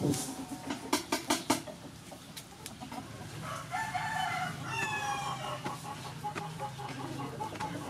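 Chickens: a rooster crowing from about three and a half seconds in, with several sharp clicks in the first second and a half.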